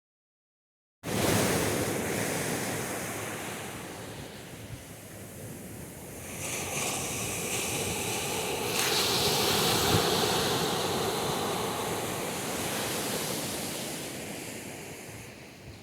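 Atlantic Ocean surf washing on a beach, cutting in suddenly about a second in, swelling to its loudest about two-thirds of the way through, then easing off.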